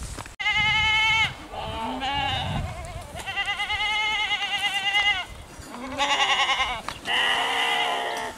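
A herd of goats bleating again and again, the calls quavering in pitch and overlapping, with one long bleat of about two seconds in the middle.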